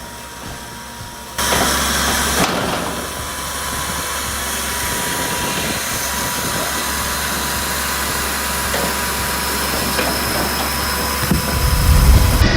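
Powered wood-cutting machine running: a loud, steady machine noise comes in suddenly about a second and a half in and carries on evenly, with a heavier low rumble near the end.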